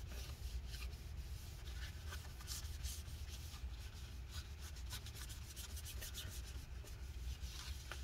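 Paper towel wet with rubbing alcohol scrubbing glue residue off the inside of a MacBook Pro's aluminium case where the battery was stuck down. A faint, irregular scratchy rubbing.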